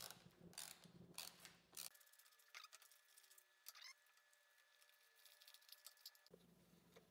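Near silence with a few faint clicks in the first two seconds: a hand screwdriver and a small screw being handled and set down. Only scattered faint ticks after that.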